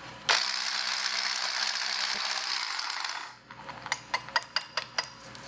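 Electric immersion blender with a whisk attachment whipping buttercream filling in a glass measuring jug: a steady motor whir for about three seconds that then stops, followed by a run of light clicks and taps.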